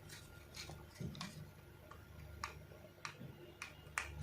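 Faint, irregular small clicks and ticks of a desktop processor being unlatched from its socket and lifted out: the metal retention lever and load plate being worked by hand.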